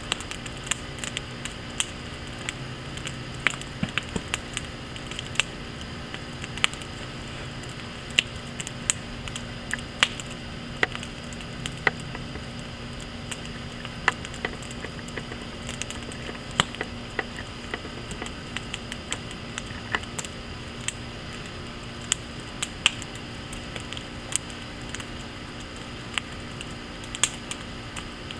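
Burning firewood crackling, with frequent sharp snaps and pops at irregular intervals over a steady hiss.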